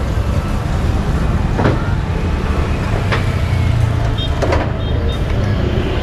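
Motor vehicle engine running close by on a city street, a steady low rumble.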